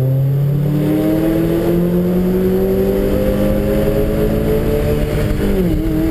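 Car engine under acceleration on a wet race track, its note climbing steadily in pitch for about five seconds, then falling quickly near the end and holding steady.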